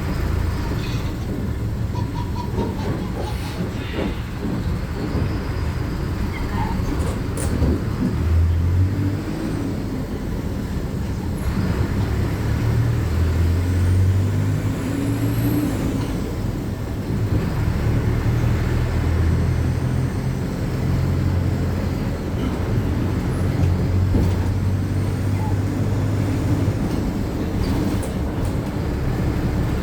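Inside a city bus on the move: steady road rumble and rattling, with the engine's low hum swelling and easing several times as the bus speeds up and slows. A faint high squeal rises and falls about halfway through.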